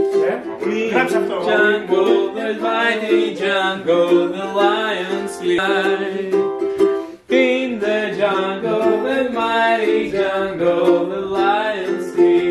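Ukulele being strummed in chords, with a voice singing along; the music breaks off for a moment about seven seconds in.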